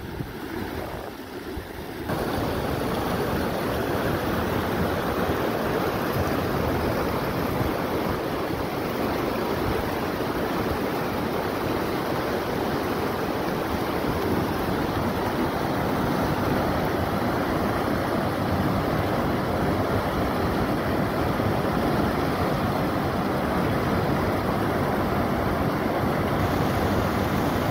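Steady rush of fast-flowing river water running over rapids, quieter for the first two seconds and then loud and even.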